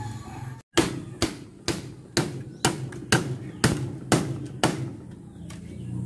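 Nine sharp, evenly spaced knocks, about two a second, of a hand tool striking the wood and bamboo edge of a woven bamboo (amakan) wall. They stop about a second before the end.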